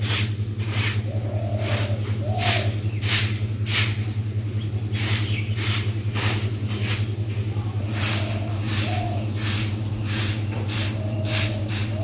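Broom sweeping a yard in steady strokes, a short scraping swish about twice a second, over a steady low hum.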